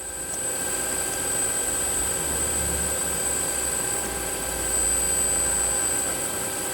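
Tsugami S206 Swiss-type CNC lathe's driven back-drill tool spindle spinning up and running at 2500 rpm: a steady machine hum with a thin high-pitched whine.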